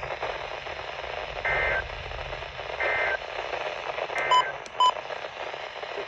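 Weather alert radio receiving a NOAA Weather Radio broadcast through steady static hiss: three short two-tone data bursts about a second and a half apart, the SAME digital header that opens an emergency alert, followed by two short sharp beeps.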